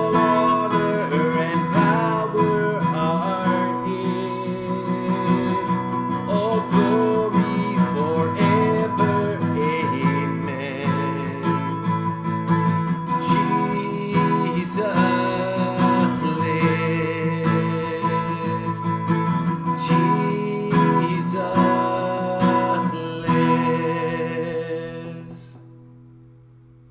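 Acoustic guitar strumming through the instrumental ending of a worship song, over steady held low notes, with a melody line moving above. Near the end the last chord rings out and fades away.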